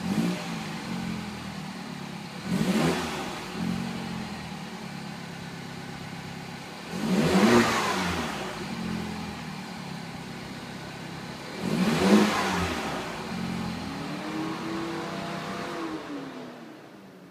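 MINI Cooper S Countryman ALL4's turbocharged 1.6-litre four-cylinder idling through a newly fitted Magnaflow aftermarket exhaust and being revved in quick blips that rise and drop back to idle, about four times, then once more slowly near the end. The exhaust note is not very loud at all.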